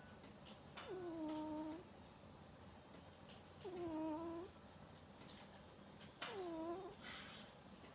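Domestic cat snoring in its sleep: three nasal, pitched snores, each about a second long and dipping slightly in pitch, roughly every two and a half seconds, with a soft breathy exhale near the end. A vet put the snoring down, perhaps, to small nostrils; the cat is otherwise healthy.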